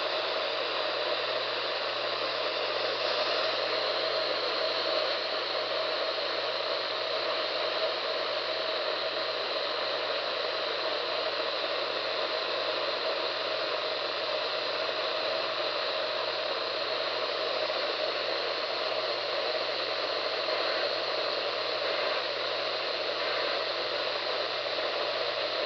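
Steady radio static: an even hiss from a radio receiver picking up no clear programme.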